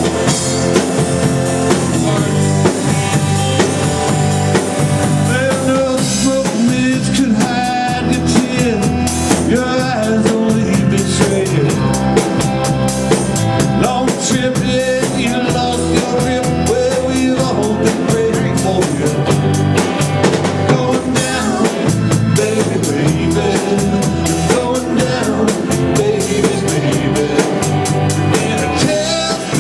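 Rock band playing live: a drum kit with steady snare and bass drum hits, under singing and instruments.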